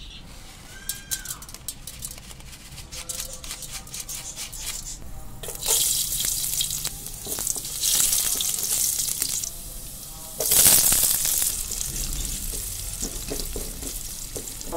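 Hot oil in a pan crackling as fenugreek seeds go in, then sizzling in surges as garlic and sliced onions are added and stirred with a wooden spatula. Scattered ticks come first; three surges of sizzling follow, and the one about two-thirds through is the loudest.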